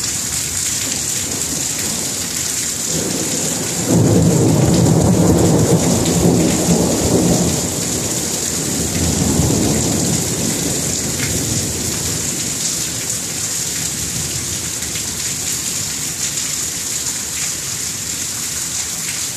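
Thunderstorm: steady rain with a rolling rumble of thunder that starts about three seconds in, is loudest for several seconds, swells again briefly near the middle and then fades under the rain.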